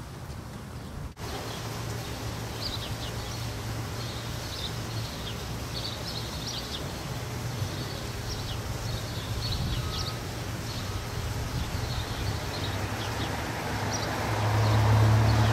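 Outdoor street ambience: small birds chirping in short, repeated bursts over a steady low hum, with a broad rumble building louder near the end.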